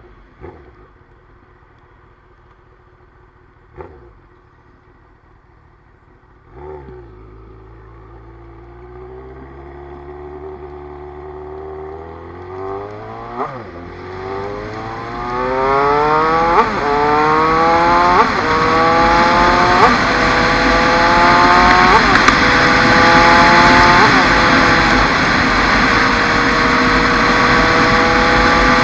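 Honda CBR954RR's inline-four engine accelerating hard up through the gears. After a quiet low-rev start, each climb in revs is cut by a quick upshift. Wind rush builds with speed, and the engine settles to a steadier cruise near the end.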